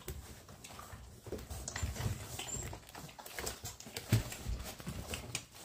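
Young puppies nursing from their mother dog, with faint whimpers and squeaks. Scattered soft clicks and bumps come from them suckling and shuffling.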